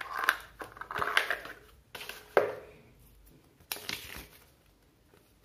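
Cardboard trimmer box and its paper leaflets being handled: rustling and scraping with several sharp knocks, dying away after about four seconds.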